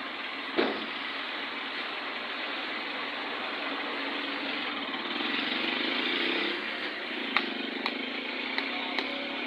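Road traffic: a motor vehicle's engine and tyre noise, swelling about five to six seconds in. A sharp knock about half a second in and a few faint clicks near the end.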